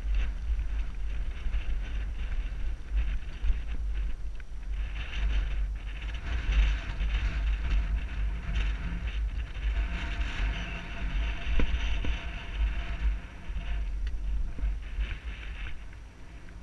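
Mountain bike rolling over dirt singletrack, heard from a helmet-mounted camera: steady wind buffeting on the microphone, with tyre noise on the dirt and occasional sharp knocks from the bike.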